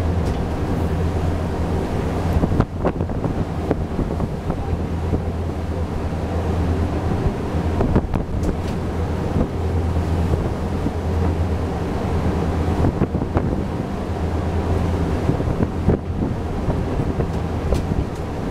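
Wind buffeting the microphone over the steady low drone of a ship's engine, with the rush of the sea beneath. There are a few sharp knocks, about three seconds, eight seconds and sixteen seconds in.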